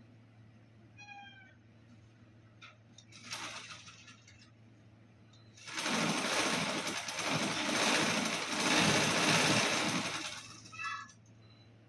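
A kitten gives a short meow about a second in and another near the end. In between, for about four seconds, comes a loud crinkling rustle of plastic bags.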